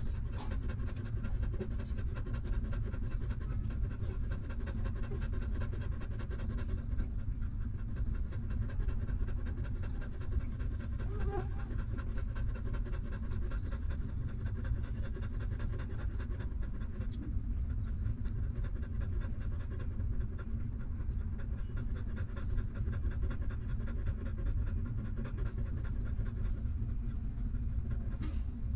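Mother dog panting steadily in quick, even breaths.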